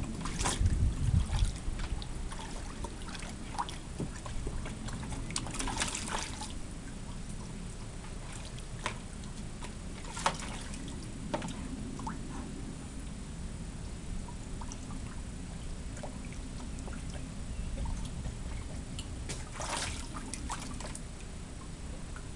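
Alaskan Malamute pawing the water in a small plastic paddling pool: sloshing splashes and drips in short spells, busiest about half a second in, around six seconds, around ten seconds and again near twenty seconds. A low rumble sits under the splashes near the start.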